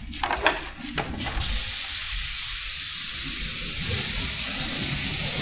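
GREX Tritium TS7 airbrush with a 0.7 mm nozzle and fan cap spraying candy base-coat paint: a steady hiss of air and atomised paint that starts suddenly about a second and a half in, after a few light handling clicks. It sprays evenly, with no spitting.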